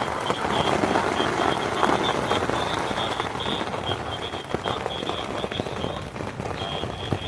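Steady rain pattering on a nylon tent's fabric, heard from inside the tent: a dense, even hiss of many small drops.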